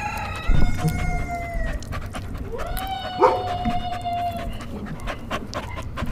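A dog giving two long howls, the second rising in pitch as it starts and then holding, with scattered short clicks.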